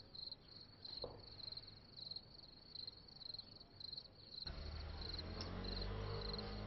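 Crickets chirping, a steady run of short high chirps about two or three a second: the stock awkward-silence sound effect. A low hum of room noise comes in about four seconds in.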